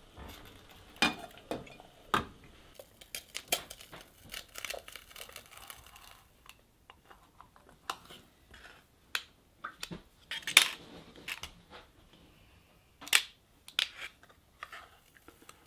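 Scattered metal clicks, clinks and knocks of a stainless steel potato ricer being loaded and squeezed over a steel mixing bowl as steamed potatoes are riced, with the sharpest knocks about ten and a half and thirteen seconds in.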